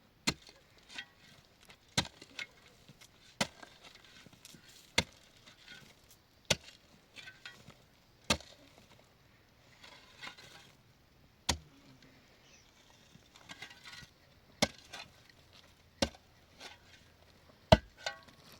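A blade chopping into wood in slow, single strokes, about one sharp blow every second and a half, with a quick double blow near the end.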